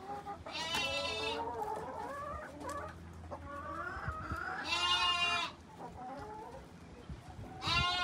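Hens in a nesting box giving three long, drawn-out calls, each about a second long, with softer, wavering clucks between them.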